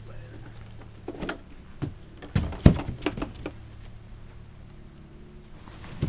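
A few irregular light knocks and taps, bunched together, the loudest a little over two and a half seconds in, over a low steady hum.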